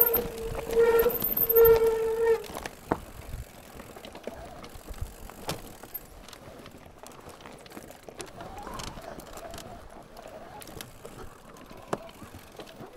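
Mountain bike on a trail: a steady squeal comes in three short pulses in the first two seconds. After that there is quieter rolling noise with a few sharp knocks from the bike.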